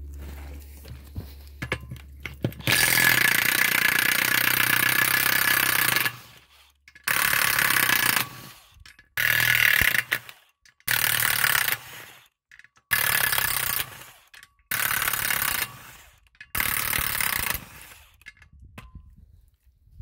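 Impact wrench hammering off the nuts of a military beadlock wheel ring: one longer run of about three seconds, then five short runs of a second or so each, with short pauses between.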